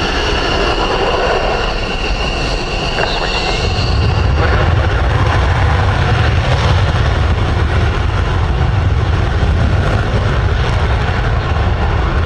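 F-16 fighter jets' Pratt & Whitney F100 turbofan engines: a steady high turbine whine. About four seconds in, it gives way to a louder, deep rumble of an F-16 taking off on full afterburner.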